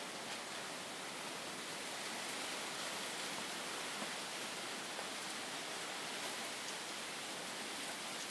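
Steady forest ambience: an even, unbroken hiss with no distinct calls, voices or knocks.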